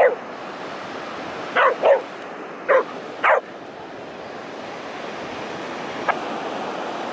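About five short, sharp yelps in quick succession in the first three and a half seconds, over the steady wash of breaking surf.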